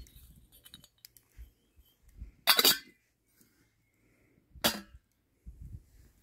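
Two short, sharp clatters about two seconds apart as camping kit is handled beside a gas stove and steel mug.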